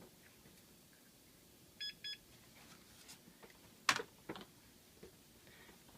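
Two short electronic beeps in quick succession about two seconds in, followed about two seconds later by two sharp clicks, the first the loudest sound here.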